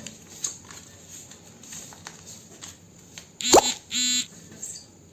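Faint rustles and light taps of a sheet of A4 paper being folded and creased by hand. About three and a half seconds in come two short squeaky sounds: the first sweeps sharply up in pitch, and the second is a brief steady squeak.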